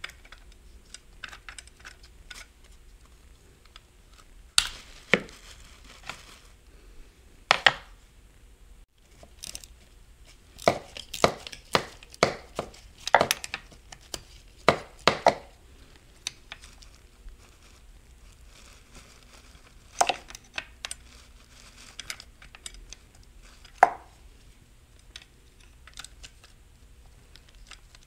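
Metal hand tools and parts clinking and knocking on an automatic transmission while bolts are being removed: irregular sharp clicks, a busy run of knocks in the middle, and single louder knocks near the start and near the end.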